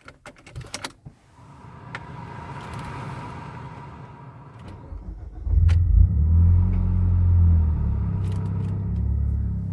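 Mitsubishi Lancer Ralliart's turbocharged four-cylinder engine starting, heard from inside the cabin: a few clicks and a hiss with a faint whine at first, then about five and a half seconds in the engine catches with a sudden low rumble and settles into a steady idle through its Ultimate Racing axle-back muffler.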